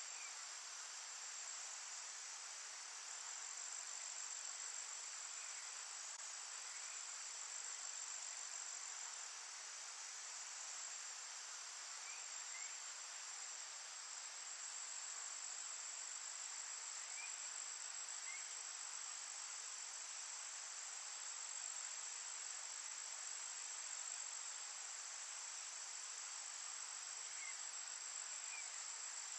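Forest insect chorus: a steady, unbroken high trill. Faint short chirps come in pairs every five seconds or so.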